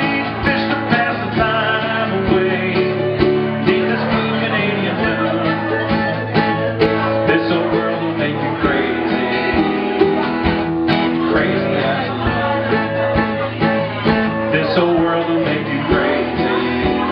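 Live acoustic band playing a country-style song: strummed acoustic guitar and mandolin over a steady drum beat, with a man singing at times.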